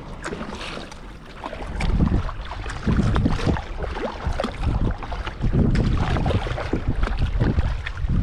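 Double-bladed paddle dipping and splashing in sea water as a sit-on-top kayak is paddled, roughly a stroke a second, with wind rumbling on the microphone.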